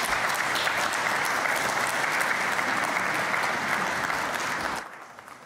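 Large audience applauding steadily, the clapping cutting off abruptly near the end.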